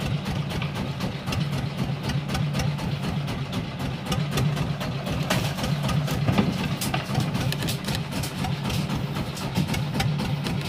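Fishing boat's engine running steadily, a low hum with a dense, rapid clatter over it.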